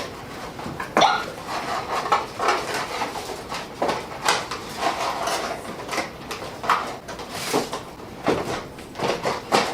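Small plastic toy pieces and packaging being handled and packed away: a string of light clicks, clatters and rustles.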